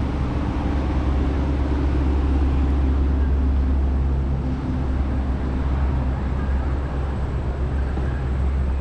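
Steady low rumble of a city street heard from a moving scooter: wind and road noise with a vehicle engine's low hum, whose higher tones fade about halfway through.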